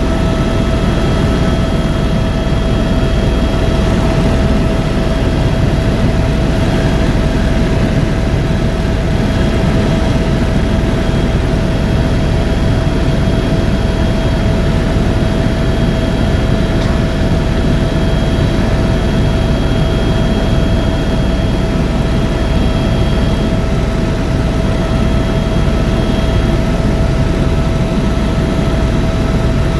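Helicopter in steady flight heard from inside the cabin: a loud, constant rumble of engine and rotor with a steady high-pitched whine over it.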